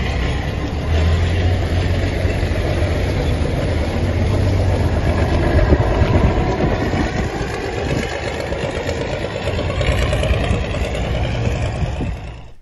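Alvis Stalwart Mk1 six-wheel amphibious truck's engine running as the truck drives off. The sound is steady, with a slight swell about ten seconds in.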